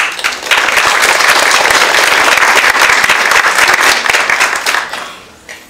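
Audience applauding. The applause starts suddenly, holds steady, and fades out about five seconds in.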